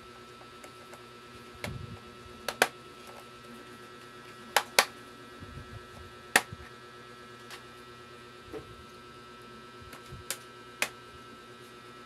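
Sharp clicks and taps of hard objects being handled off to one side, about eight of them spread unevenly, several coming in quick pairs, over a steady electrical hum.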